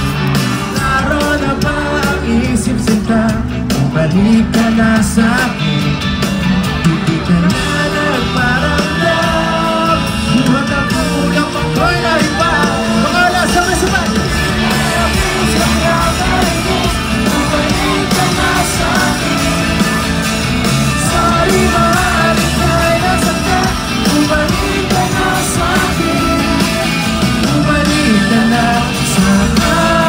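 Live rock band playing with a lead singer, heard from within the crowd, with audience members yelling and cheering over the music.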